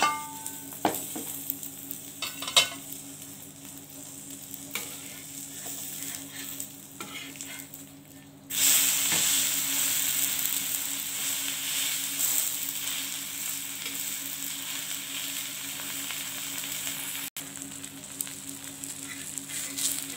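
An uttapam sizzling in oil on an iron tawa, with a few clicks and scrapes of a spatula. About eight seconds in, the sizzle jumps much louder as the uttapam is flipped onto the hot oiled tawa, and it keeps frying steadily after that.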